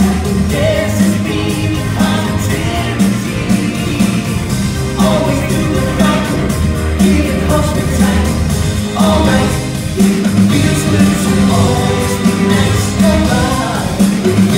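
Upbeat pop song with singing and a steady beat, played loud over a theatre's sound system for a dance number, heard in a large hall.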